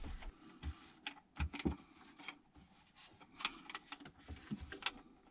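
Scattered light clicks and knocks, irregular and faint, from a laminating roller being worked over wet epoxy and fiberglass cloth on the hull's inside.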